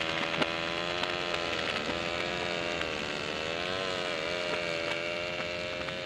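Small chainsaw engine running steadily, its pitch wavering slightly up and down, played in reverse.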